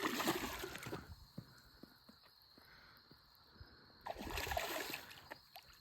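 Water sloshing and lapping around a small boat, louder for about the first second and again around four seconds in, with a few faint clicks and knocks in the quieter stretch between.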